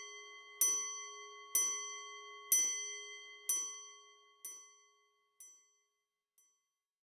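A bell struck about once a second, each stroke ringing on with a clear metallic tone before the next, the strokes growing fainter until the last, faint one near the end.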